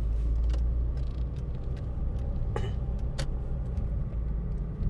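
Road and engine noise inside the cabin of a moving car: a steady low rumble, with a few faint clicks.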